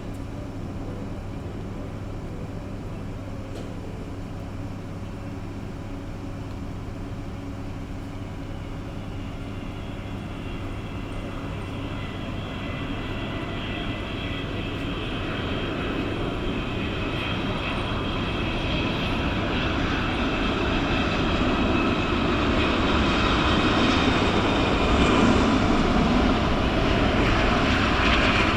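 Jet engines of an arriving Boeing 777-200ER airliner, growing steadily louder as it approaches, with a rising rumble and a whining fan tone that drifts slightly down in pitch.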